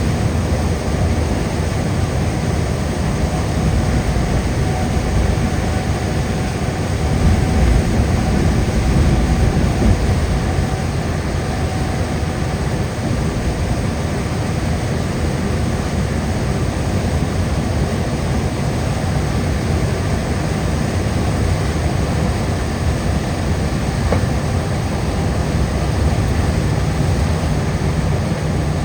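Steady road noise of a car driving at highway speed: a low rumble of tyres and wind, swelling slightly about seven to ten seconds in.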